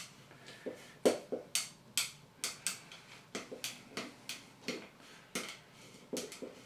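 Screwdriver turning a fixing screw through a chrome towel-radiator bracket into the wall: a run of short, irregular metal clicks and scrapes, about two a second, from about a second in, as the screw is driven home.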